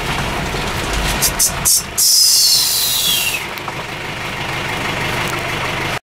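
Toyota Bandeirante's diesel engine running at low revs and settling to a steady idle as the jeep pulls up. A few sharp clicks come about a second and a half in. A high hiss follows, sliding down in pitch for about a second and a half.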